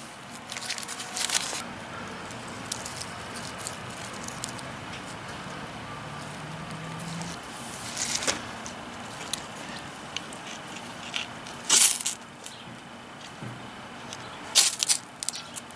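Ferro rod struck against fatwood shavings to throw sparks and light them: a few short, harsh scrapes spaced several seconds apart, ending in a quick cluster of strikes near the end.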